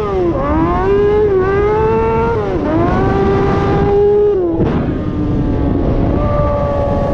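Kawasaki ZX-636R inline-four engine in a TRX450R quad, running under load. Its pitch climbs, holds and drops back three times, the way an engine does through gear changes.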